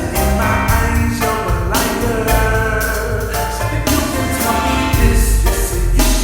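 Christian song: sung vocals over a steady drum beat and deep bass.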